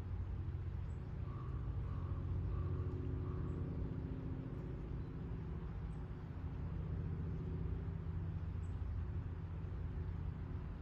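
Steady low rumble of distant city road traffic, with a few faint, very short high bird chips now and then.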